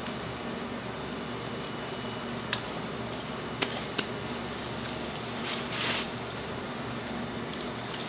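Kitchen work over a steady hum: three sharp clicks between about two and a half and four seconds in, then a brief hiss lasting about half a second.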